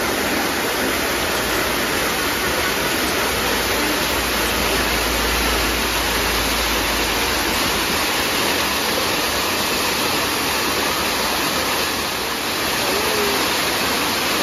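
Rain-season waterfall spilling down a bare rock slab and splashing into a rocky pool: a steady, loud rush of falling water.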